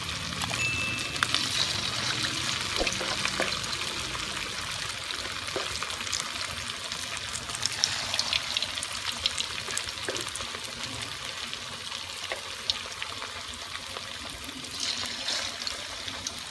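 Hot oil sizzling and crackling in a wok as patties of ground pork, tofu, egg and flour deep-fry, with a metal spoon moving them about in the oil. The sizzle eases slightly toward the end.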